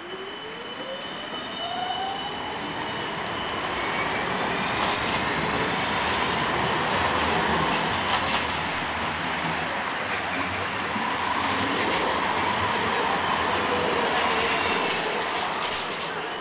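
Two BKV articulated trams rolling past close by, with wheels running on the rails and a high wheel squeal. A rising electric whine is heard in the first second or so, and a few clacks from the wheels crossing track joints come about five seconds in and near the end.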